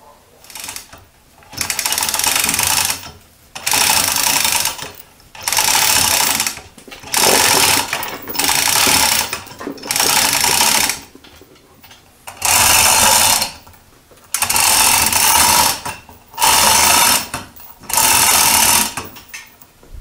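Chain hoist lifting a heavy milling-machine knee casting in about ten short runs of a second or so each, the chain rattling through the hoist.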